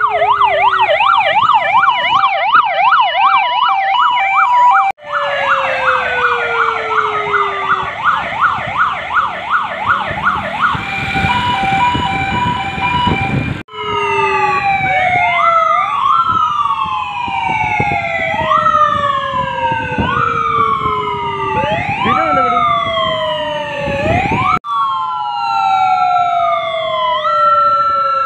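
Several police sirens sounding together, overlapping. They switch between a fast warbling yelp, a steady two-note hi-lo and slow falling wails that jump back up. The sound breaks off abruptly three times.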